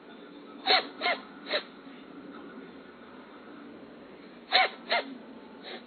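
A cat sneezing in quick runs: three sharp sneezes about a second in, then two more and a fainter one near the end.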